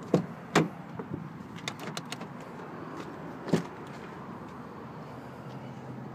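A pickup truck's door being handled: a few sharp clicks and knocks from its latch and panel, the loudest about three and a half seconds in.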